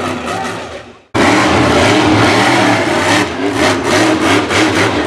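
War Wizard monster truck engine running hard. The sound fades out within the first second, then comes back loud, revving, with a quick run of throttle blips in the second half.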